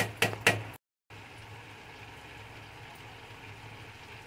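A steel ladle knocks three times against an iron kadhai. After a short break comes a steady soft bubbling hiss: grated bottle gourd simmering in milk, its water slowly cooking off into halwa.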